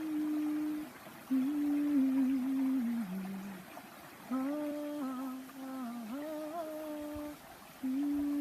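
A woman humming the chant melody in slow, held notes, in about four phrases with short breath pauses between them.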